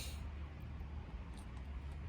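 Softwood fire burning in a Solo Stove-style wood-burning stove: a sharp crackle at the start and a faint pop about one and a half seconds in, over a steady low rumble.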